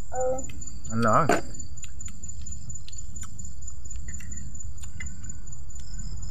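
Insects shrilling steadily in one high, unbroken tone over a constant low rumble, with a brief vocal sound about a second in and a few faint clicks.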